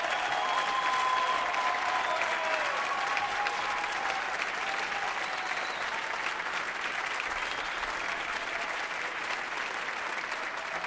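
Large audience applauding steadily, a dense, even clapping.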